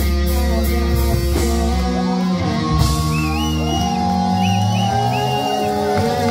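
A live rock band playing: electric guitars, bass guitar and drum kit. The deep bass drops away about two seconds in, leaving held, bending lead notes over the band.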